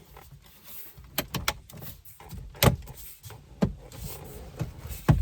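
Plastic dash trim panel of a 2014 Toyota Corolla being pressed back in, its retaining clips snapping into place: a handful of sharp clicks and knocks at uneven intervals.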